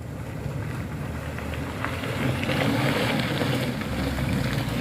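Truck diesel engine working hard at full throttle on a steep climb, getting louder through the second half.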